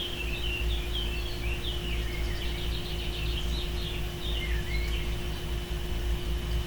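Small birds chirping in quick, short notes that rise and fall, over a steady low hum.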